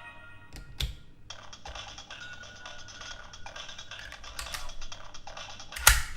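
AppliDrive toy's small speaker playing an electronic chip-reading effect: a dense, rapid, clicky chatter that lasts about four seconds. A sharp click comes near the end.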